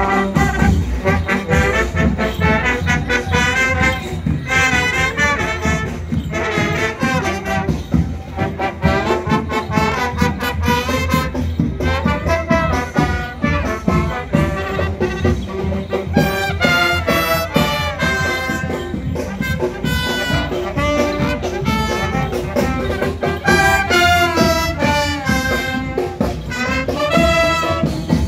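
Marching brass band playing live: trumpets and trombones carrying a lively tune over a steady drumbeat.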